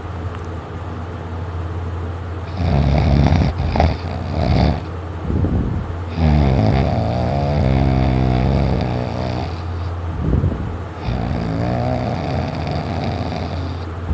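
Heavy snoring in deep sleep: three long snores, roughly one every four seconds, over a steady low hum.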